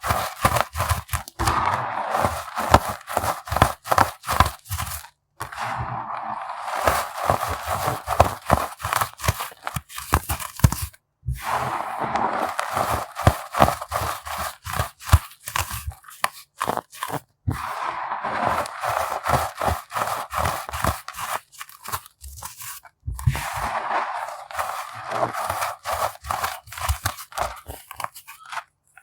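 Unsifted pebbles of compressed baking soda being crushed, a dense crackling crunch. It comes in bouts of about five or six seconds, each ending in a brief pause.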